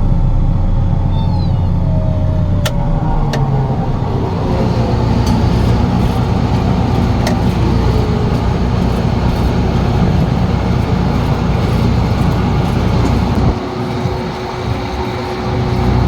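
Gleaner N6 combine running steadily under load while harvesting wheat: a continuous low engine and threshing rumble. It eases off briefly about two seconds before the end, then comes back up.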